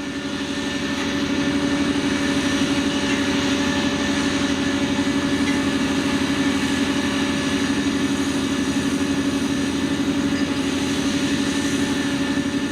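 Diesel engine of heavy farm machinery running at a steady speed, with a strong even hum. It rises in over the first second or so, then holds level.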